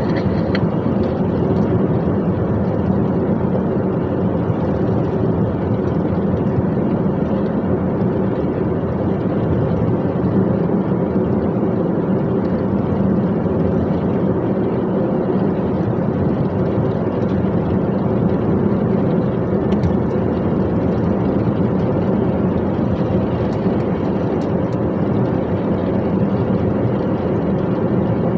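Dump truck driving: the diesel engine and road noise make a loud, steady drone that holds even throughout.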